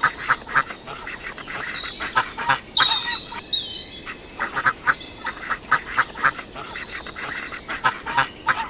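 Ducks quacking, a long run of short, repeated quacks with some higher thin calls among them.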